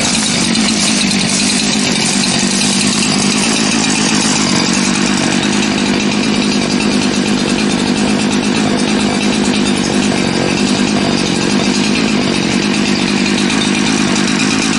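Gas chainsaw running steadily at an even engine speed, without revving up or down.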